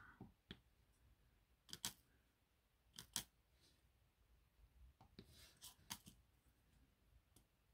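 Faint, sharp clicks of a diamond-painting pen setting acrylic drills onto the canvas: a pair about two seconds in, another pair about three seconds in, and a quick cluster around five to six seconds.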